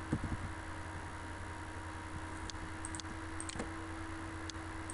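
Computer mouse clicking a few times, single and paired light clicks from about halfway through, over a steady electrical hum and microphone hiss.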